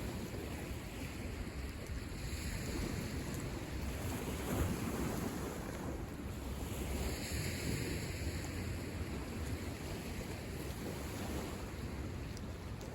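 Lake Michigan waves washing onto the shore in a continuous rush, swelling and easing every few seconds, with wind buffeting the microphone.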